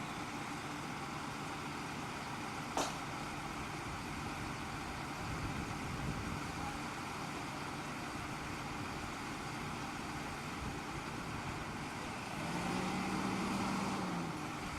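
A truck engine idling steadily, with a single sharp click about three seconds in. Near the end the engine speeds up for about a second and a half and then settles back.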